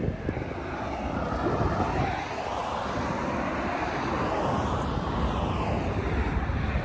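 A passing motor vehicle: a steady rushing noise that swells in the middle and eases off toward the end.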